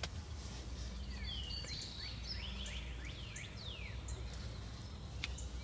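Wild bird song: a run of quick, falling whistled notes, over a steady low outdoor rumble, with a faint click near the end.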